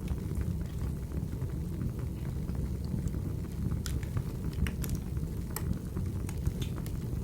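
Wood fire burning in a fireplace: a steady low rumble of the flames with scattered sharp crackles and pops, the loudest about four and five and a half seconds in.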